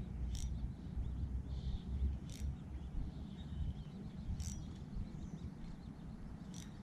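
Outdoor ambience: a steady low rumble with faint bird chirps, and a short sharp tick about every two seconds.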